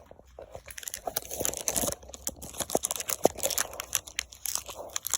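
Crinkling and tearing of a trading-card pack's wrapper as it is ripped open by hand, with sharp crackles of the wrapper throughout.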